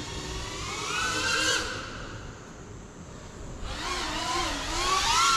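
FPV quadcopter's electric motors whining, their pitch rising and falling with throttle, in two surges: one around a second in and a longer one from about four seconds on, loudest near the end.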